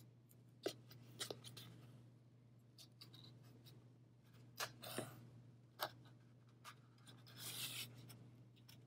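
Faint rustles and soft clicks of yarn being wound around a cardboard loom and slipped into its notches, with a longer scratchy rustle near the end.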